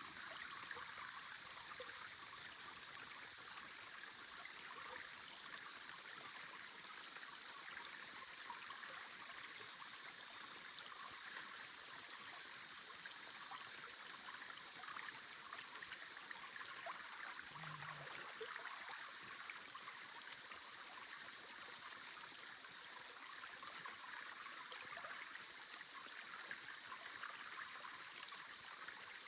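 Forest river flowing: a steady rush of running water.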